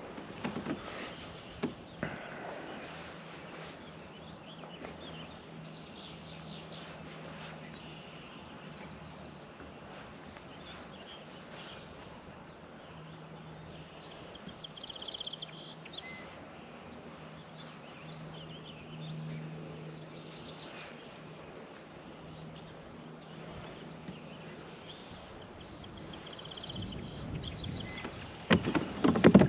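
Wild birds chirping in short bursts over a faint steady hum and open-air background, with a few louder knocks and handling sounds near the end.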